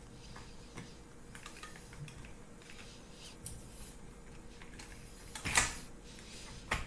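Faint taps and clicks of homemade aluminum bars being worked into a Baja 5B RC car's quick-release mount, with one sharp clack about five and a half seconds in and a smaller click near the end as a bar goes in.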